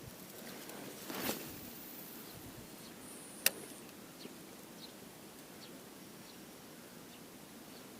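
Faint songbirds chirping in a quiet spring morning, short high calls scattered throughout. A brief whoosh comes about a second in, and a single sharp click about three and a half seconds in.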